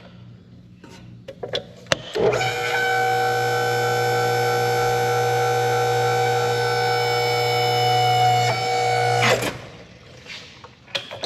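An electric motor-driven machine runs with a steady, unchanging whine for about seven seconds. It starts about two seconds in and cuts off suddenly, with a few light clicks and knocks before it.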